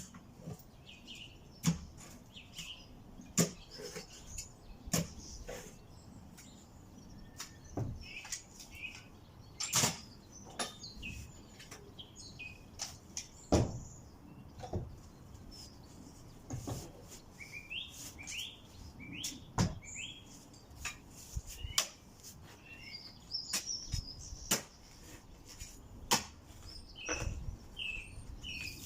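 Small birds chirping and trilling, with irregular sharp knocks and clicks throughout.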